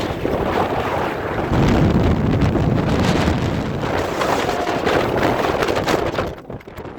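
Strong mountain wind blasting the microphone: a loud, rough rushing noise that eases briefly near the end.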